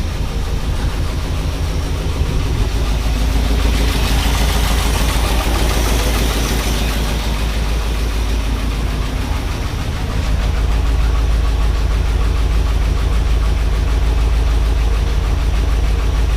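Ford 460 big-block V8 of a 1978 F-150 idling rough with a misfire, the exhaust sounding like a lot of air is blowing out of it. The low rumble grows a little louder about ten seconds in.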